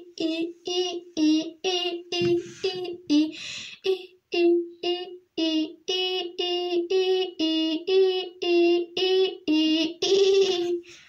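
A child's voice chanting short syllables on one steady, fairly high note, about two a second. A few of the syllables are breathy and hissing.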